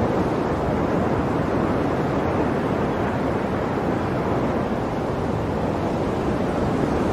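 Ocean waves washing ashore in a steady, continuous rush of surf, with a slight lull midway.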